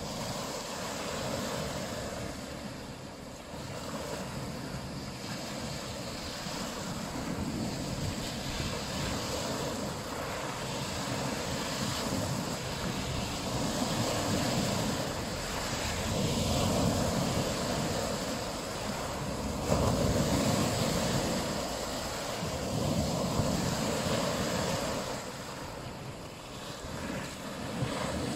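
Small lake waves breaking on a pebble shore and washing back over the stones, swelling and easing every few seconds, with wind buffeting the microphone.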